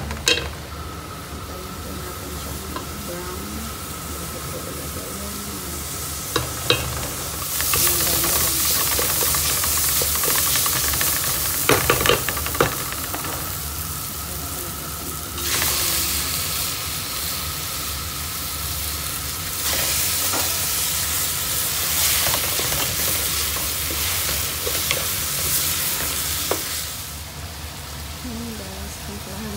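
Diced onion, garlic and ginger sizzling in oil in a metal stock pot while being stirred with a wooden spoon. The sizzle swells and eases in long stretches, with a few sharp knocks about six and twelve seconds in.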